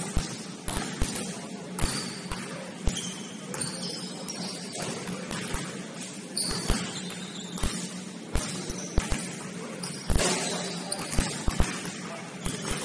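A basketball bouncing on a gym floor during play: irregular thuds, a few of them loud, with short high squeaks of sneakers and a steady low hum underneath.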